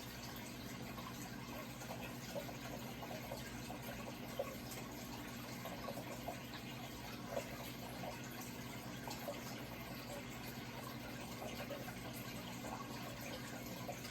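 Running water trickling and bubbling steadily, with small splashes now and then, over a constant low hum.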